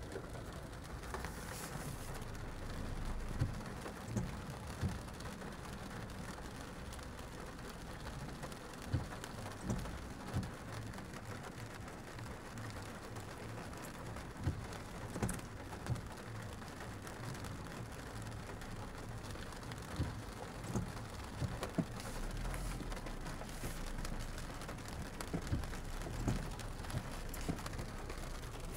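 Rain pattering on a car's roof and windows, heard from inside the cabin: a steady hiss with scattered louder drop taps at irregular moments over a low steady hum.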